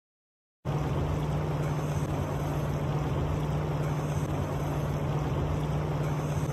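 River water rushing over a rocky riffle: a steady, even rush that cuts in abruptly a little over half a second in, with a low steady hum underneath.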